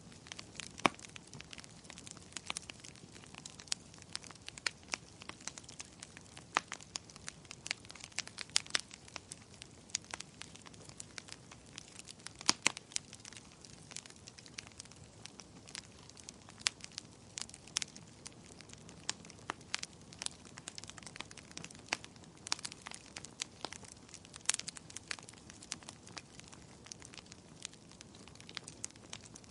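Wood fire crackling, with irregular sharp pops several times a second over a faint steady hiss.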